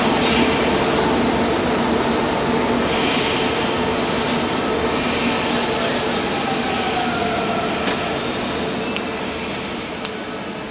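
Train running on rails: a steady rumble with a held hum that slowly fades, and a faint falling whine about two-thirds of the way through.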